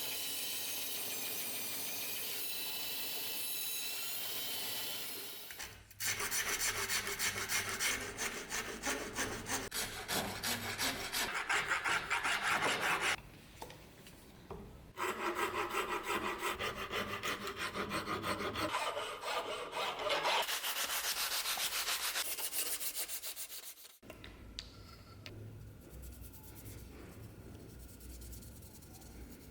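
Fast back-and-forth rubbing strokes, like hand sanding or filing, in two long runs with a short pause between. They are preceded by a steady whirring tone with several pitches lasting about five seconds, and followed by a quieter low hum.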